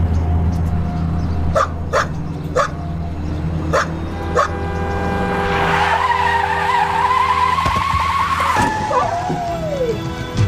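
A dog barks about five times, then car tyres screech in a long wavering squeal as the car brakes hard. It ends in a falling whine near the end. This is the moment the dog is struck by the car.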